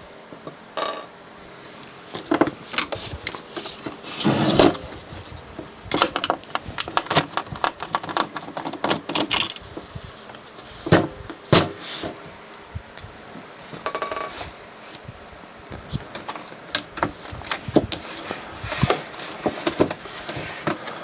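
Irregular clicks, taps and small clattering knocks of hard plastic and metal parts being handled while a DVD player is taken apart by hand.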